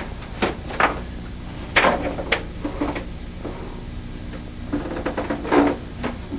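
Room noise of a small office: a steady low hum with a scatter of short scuffs and knocks, bunched around the first two seconds and again about five seconds in, as a person shifts from a chair down to the floor and things are handled at a desk.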